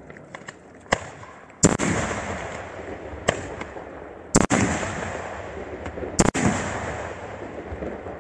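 Fireworks bursting in the sky: about six sharp bangs. The loudest come about one and a half, four and a half and six seconds in, the last as a quick double, and each leaves a long echoing rumble that fades.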